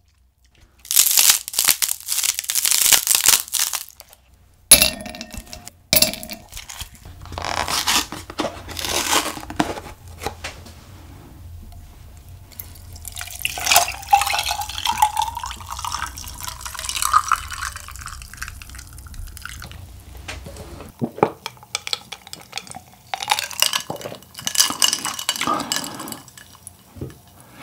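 A fruit drink poured from a paper carton into a glass, the pitch of the pour rising as the glass fills. Handling noises and a sharp click come before it.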